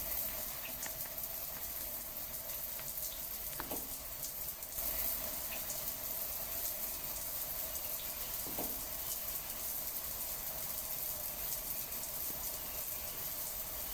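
Steady rush of flowing water, with two brief downward-gliding sounds about four and eight and a half seconds in.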